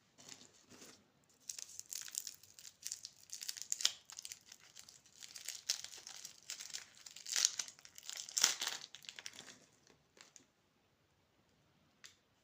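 Plastic candy wrapper crinkling and tearing as it is handled and opened, in irregular bursts for about ten seconds, then one short click near the end.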